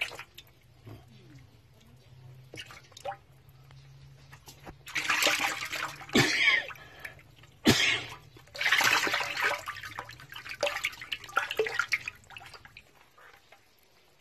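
Water splashing and sloshing in a concrete frog-rearing pond, coming in irregular bursts with a couple of sharp knocks.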